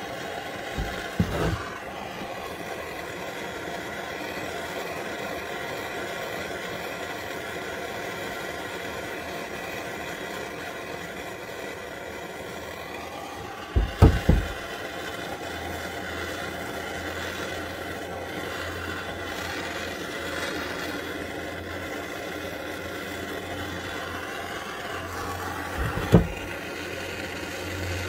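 Handheld gas torch burning steadily as its flame heats a rusted nut and bolt to free them. Three loud knocks break in: about a second in, about halfway, and near the end.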